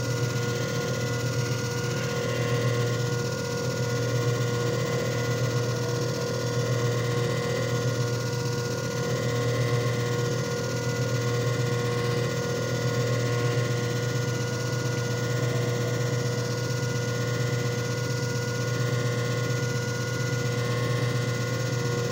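JFJ Easy Pro disc repair machine running a repair cycle: its motor gives a steady low hum with a few higher steady whining tones over it, unchanging throughout.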